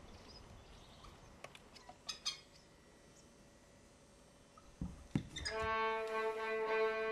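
Faint outdoor ambience with a few soft clicks and a brief high chirping about two seconds in. About five and a half seconds in, a solo violin comes in on a long held note.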